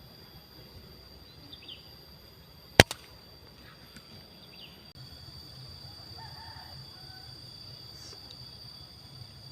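A single sharp crack of an uklik air rifle being fired about three seconds in, followed at once by a fainter click. Underneath, insects keep up a steady high drone, with a few faint bird chirps.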